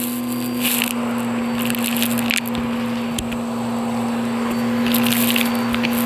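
Vacuum cleaner running with a steady hum through its hose and triangular attachment tool. Bursts of crackling and rattling come several times as grit, lint and small bits of debris are sucked up off the carpet.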